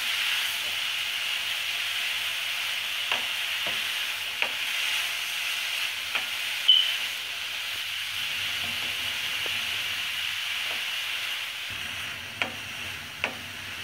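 Freshly grated carrots sizzling in ghee in a nonstick frying pan while a spatula stirs them, with a steady frying hiss and scattered short taps and scrapes of the spatula against the pan. The loudest tap comes a little before halfway.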